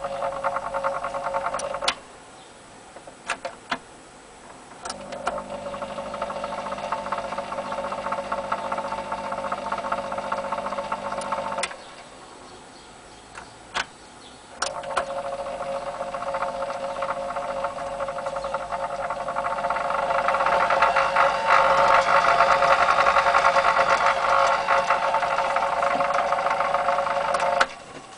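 Electric spinning machine (BEP-3) running, its motor and flyer making a steady whirring hum. It is switched off and on with clicks: it stops about two seconds in, restarts a few seconds later with a deeper note, stops again near the middle, and restarts, running louder for the last several seconds before cutting off just before the end.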